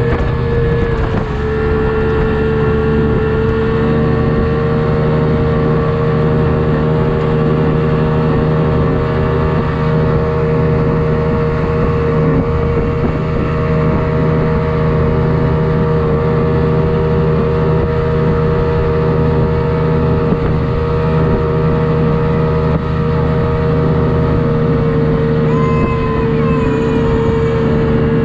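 1999 Evinrude FICHT 150 two-stroke outboard running steadily at an even pitch with the boat under way, with a brief dip in pitch about a second in.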